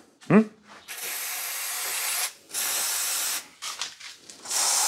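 Aerosol can of rust penetrant sprayed onto exhaust bolts that tend to rust fast. It hisses in three short bursts: one of about a second, a shorter one, and a third starting near the end.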